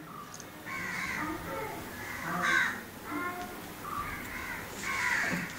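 Crows cawing repeatedly, about one harsh caw a second, the loudest about two and a half seconds in.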